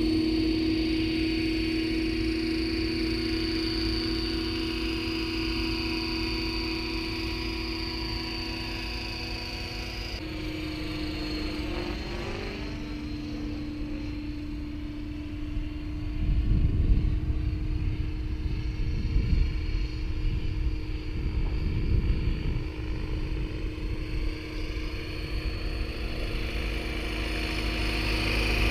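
Electric RC helicopter (Align T-Rex 600 ESP under a Hughes 500E scale body) in flight: a steady whine of the motor and spinning rotors. The pitch drops and glides about ten seconds in as it flies around, and a low rumbling noise comes and goes through the middle.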